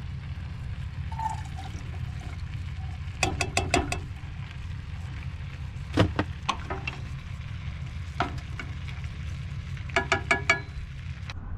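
Canned corn tipped from its tin into a small saucepan and stirred with a wooden spoon: short clusters of ringing clinks and knocks of tin and spoon against the pot, over a steady low hum.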